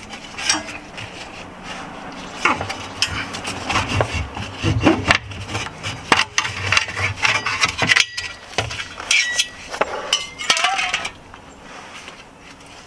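Irregular metallic clinks and knocks of tools and parts being handled while a car's handbrake cable is being detached.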